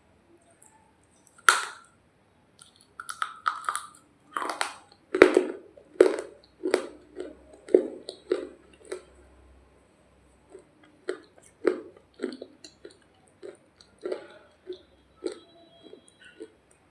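Close-miked biting and chewing of a hard, dry roti: a sharp bite about a second and a half in, then a quick run of loud crunches, thinning out to slower, softer chewing crunches in the second half.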